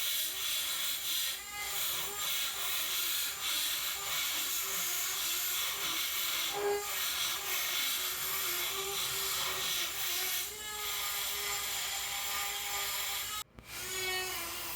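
Rotary tool with a burr bit running steadily, grinding down a fresh aluminum weld bead on a Vespa engine case, its pitch wavering with the load. It cuts out suddenly for an instant near the end and then carries on.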